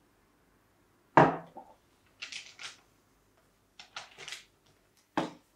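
A cut-glass tumbler set down on a wooden coffee table with a sharp knock about a second in, followed by a few short rustles and another knock near the end.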